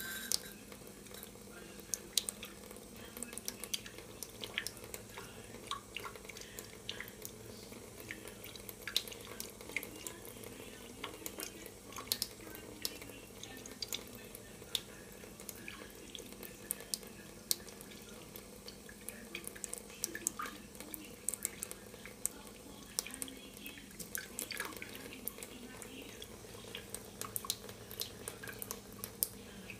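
A kitchen faucet running a thin stream into a stainless steel sink, with irregular sharp drip-like ticks and small splashes throughout.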